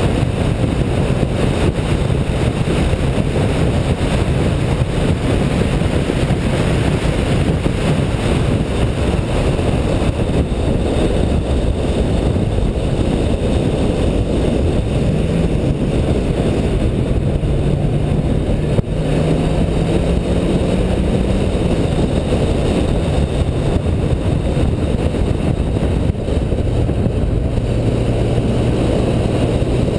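A car being driven at speed: the engine runs under dense, steady wind and road noise. Its note climbs slowly about halfway through, then drops back and holds steady near the end.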